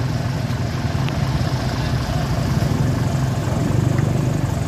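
Isuzu Forward truck's engine idling steadily, a constant low hum.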